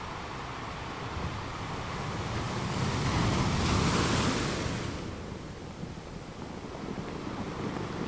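Ocean waves: a steady wash of surf in which one wave builds from about two seconds in, is loudest around the middle, and subsides about five seconds in.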